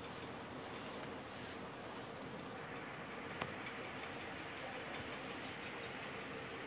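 Quiet room tone: a steady hiss with a faint hum, and a few soft, short clicks scattered through it.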